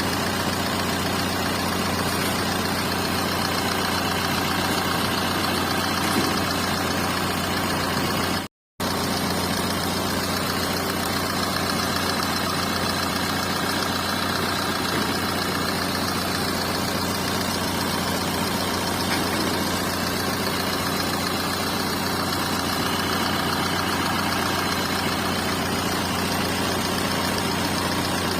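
Renault Duster diesel engine idling steadily: the heavy engine noise that is taken for a problem. The sound cuts out for a moment about eight and a half seconds in.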